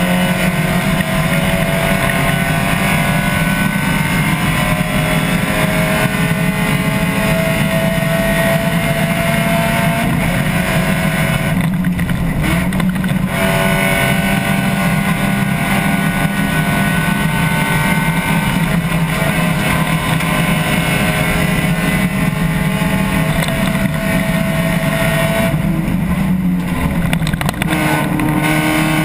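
Spec Miata's four-cylinder engine running hard under load, heard from inside the cockpit, its pitch climbing slowly as the car accelerates. The note eases twice, about twelve seconds in and again a few seconds before the end, as the car lifts and slows for corners.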